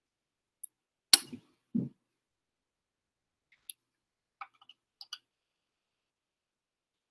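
Plastic spin columns and microcentrifuge collection tubes clicking and knocking as they are pried apart and handled with a tool. A loud sharp click about a second in is followed by a duller knock, then a few lighter clicks a few seconds later.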